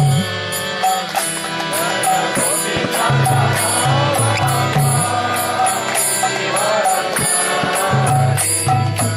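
Kirtan music: chanted devotional singing over a steady drone, kept in rhythm by a constant jingle of small hand cymbals and a pattern of low drum beats. The sung line is clearest in the middle of the stretch.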